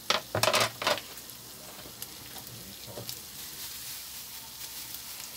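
A pan of diced sausage, garlic and onion frying with a steady sizzle. A few sharp scraping knocks in the first second, as the cheese grater is handled and set down.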